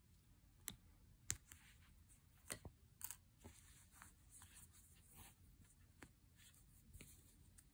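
Near silence with faint hand-crocheting noises: a crochet hook and yarn being worked, giving a few small sharp clicks, the clearest about a second in, and light rustling.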